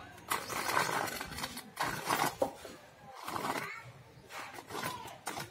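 A profile template being scraped along wet cement mortar to shape a moulding, in several rough scraping strokes each lasting under a second, with a voice faintly in the background.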